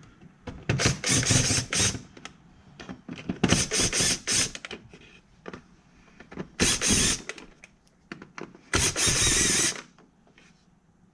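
Power driver spinning out 7 mm bolts in about four short bursts with pauses between them.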